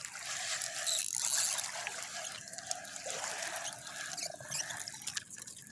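Water trickling and lapping lightly, a steady low wash with no distinct splashes.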